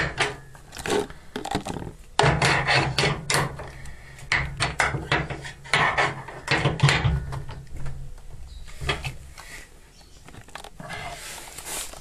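Open-end wrench scraping and clicking on the lock nut of a washing machine's front levelling foot as the nut is tightened against the cabinet. It comes as a run of short, irregular rasping strokes that die away near the end.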